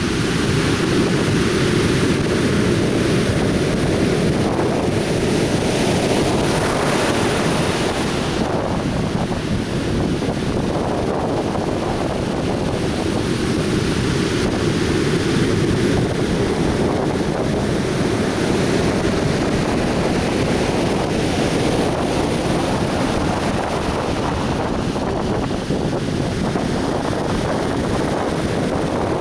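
Atlantic Ocean surf washing onto a beach, a steady rushing wash of breaking waves with wind buffeting the microphone.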